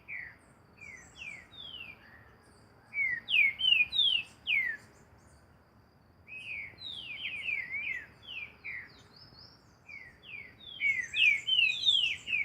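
Green-winged saltator (trinca-ferro) singing: phrases of quick, downward-slurred whistled notes, sparse at first, then three louder runs starting about three, six and ten seconds in. Faint high-pitched chirps sit above the song.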